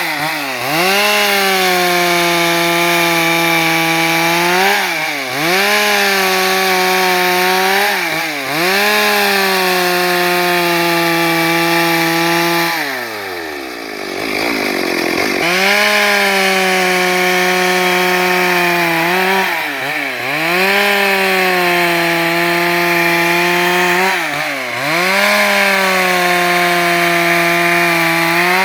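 Stihl MS 382 two-stroke chainsaw running at high revs while sawing planks, its pitch dipping briefly several times under load. About halfway through the engine falls off to idle for a couple of seconds, then revs back up and keeps cutting.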